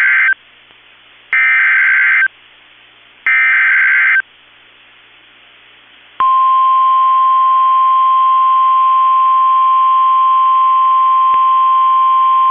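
NOAA Weather Radio Specific Area Message Encoding (SAME) alert header: the tail of one data burst, then two more, each about a second long, a second apart. About six seconds in, the steady 1050 Hz warning alarm tone begins and holds, announcing a new alert message.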